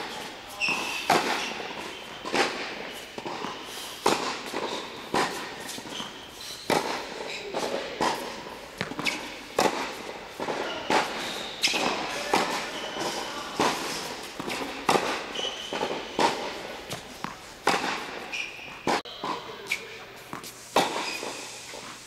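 Tennis ball struck hard by a racket over and over, a sharp crack about every one to one and a half seconds as forehand groundstrokes, echoing in an indoor tennis hall, with tennis shoes squeaking on the hard court between shots.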